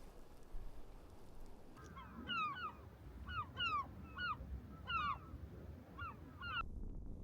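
Bird calls: a string of short, downward-sliding calls in clusters of two or three, starting about two seconds in and stopping about a second before the end.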